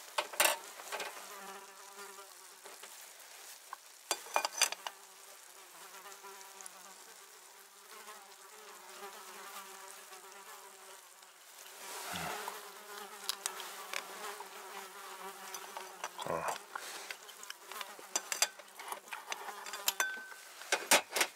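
A fly buzzing around, a steady hum that wavers in pitch, with a few short knocks and clicks from the frying pan being handled.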